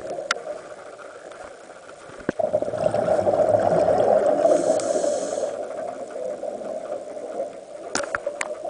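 Underwater sound of a scuba diver's regulator exhausting a rush of bubbles, which swells suddenly a couple of seconds in and lasts about three seconds before easing. A few sharp knocks on the camera housing can also be heard, mostly near the end.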